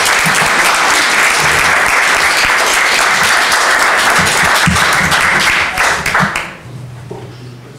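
Audience applauding: dense, steady clapping that dies away about six and a half seconds in.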